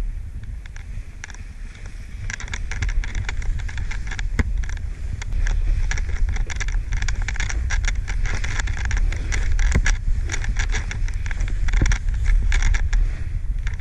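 Snowboard riding through deep powder snow: a low wind rumble on the camera with dense, irregular hissing crunches of board and spraying snow, growing louder a couple of seconds in.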